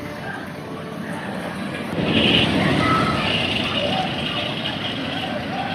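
Fujiyama steel roller coaster train rumbling along its track, growing louder about two seconds in, with riders yelling over it.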